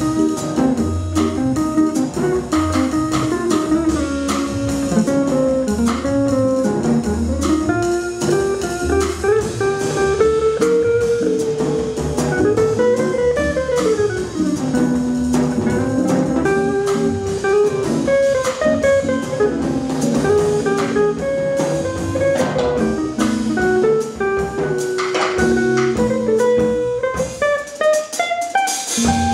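Live jazz combo playing: a winding single-note guitar line over walking upright bass and drums with cymbal ride. Near the end the bass drops out briefly and a quick rising run of notes leads on.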